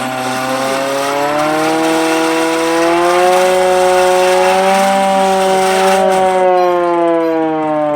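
Portable civil defence siren wailing, its pitch climbing slowly as it winds up, holding, then falling away from about six seconds in, over a steady mechanical drone.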